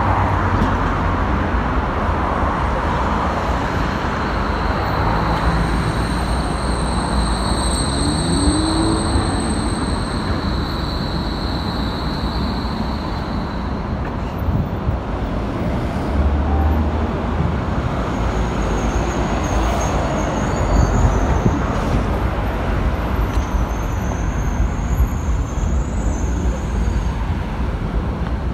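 Electric low-floor tram pulling away from a stop, heard over steady, continuous road traffic. A faint high steady tone is heard for several seconds in the first half.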